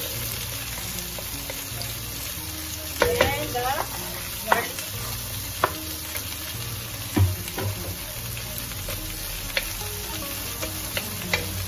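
Chopped garlic and onion sizzling in hot oil in a stainless steel pan, stirred with a wooden spatula. The spatula scrapes and knocks against the pan every second or two, with a few short squeaks.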